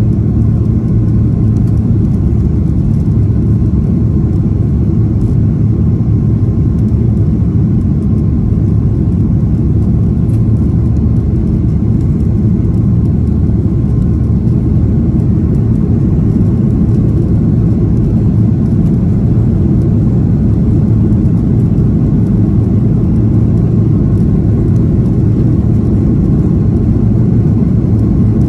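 Cabin noise of a Ryanair Boeing 737 climbing after takeoff: its jet engines at climb power and the rushing air make a steady low rumble heard from inside the cabin.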